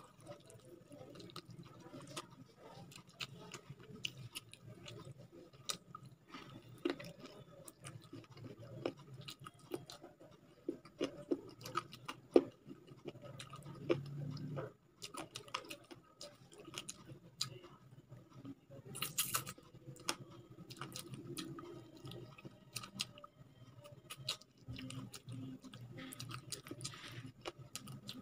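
Close-up chewing and wet mouth clicks of a person eating chicken curry and rice by hand, in many small irregular smacks and clicks. A brief, louder, sharper burst comes about two-thirds of the way through.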